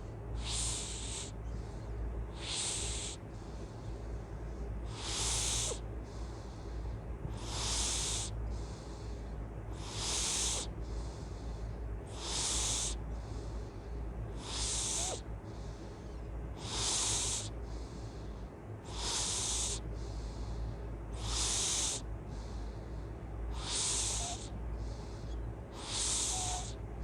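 Loud breathing in sleep, with snoring: an even, hissing breath about every two and a half seconds, over a steady low hum.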